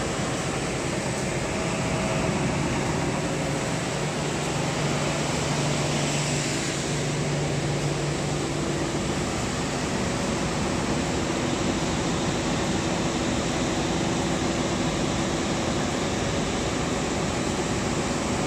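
Three-head solid-wood planer sander running with a steady machine drone, with a hum that shifts pitch as a board is fed through on the conveyor.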